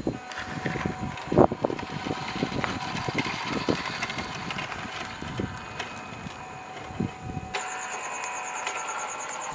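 WPL D12 1/10-scale RC Suzuki Carry mini truck driving over paving bricks: its electric motor and gears whine steadily, with scattered clicks and knocks from the tyres and chassis on the uneven paving. About three-quarters of the way in, the low rumble drops away and a fast pulsing high tone comes in.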